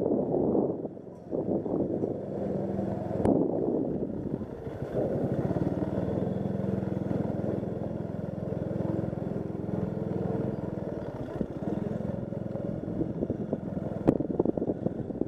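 Motorcycle engine running steadily at low speed, with a sharp knock about three seconds in and another near the end.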